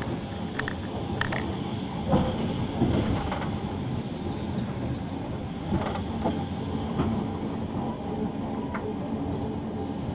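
Passenger train running on the rails, heard from inside a carriage: a steady running noise with scattered, irregular clicks and knocks.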